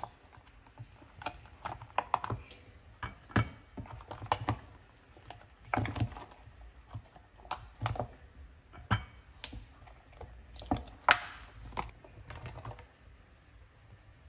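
Irregular soft taps, clicks and knocks as bars of homemade soap are popped out of a silicone mould and set down on a plate, one on another, with the flexed mould slapping back. The loudest knock comes about eleven seconds in.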